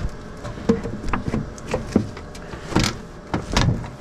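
Sheet-metal parts of a gas heater being pulled and pried apart by hand: irregular knocks, clanks and short scrapes, several a second.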